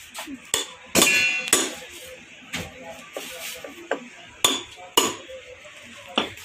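Hammer striking a lead-acid battery's top and edge: about nine sharp, irregular blows, the loudest about a second in ringing briefly like metal.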